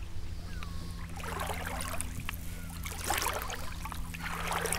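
Shallow seawater swishing and lapping around wellington boots as someone wades slowly, in swells that come and go, over a steady low hum.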